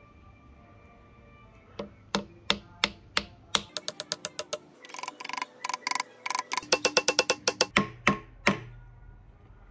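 Hammer driving a wooden wedge into the slotted top of an ebony axe handle, seating it in the axe head's eye. Sharp taps start about two seconds in, about three a second at first, then quick runs of lighter taps, ending with three heavier blows.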